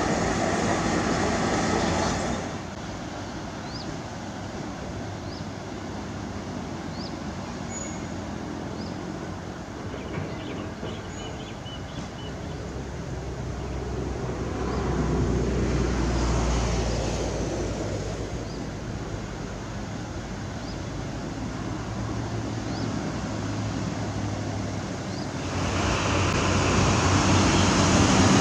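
Diesel engines of heavy earthmoving machinery running steadily, louder at the start, swelling around the middle, and rising again near the end as the machines work closer.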